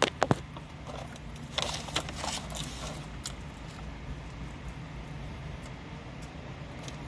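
A man eating a burger: a few clicks and rustles at the start, then biting and chewing sounds, over a steady low hum.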